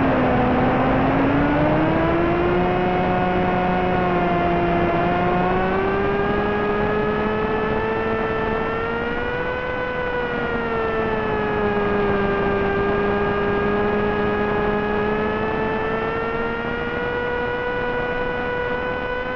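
Small brushless motor and 6x3 propeller of a Wing Wing Z-84 flying wing whining steadily in flight, over a constant rush of wind noise. The pitch dips low right at the start, climbs over the next few seconds, then rises and falls gently as the throttle changes.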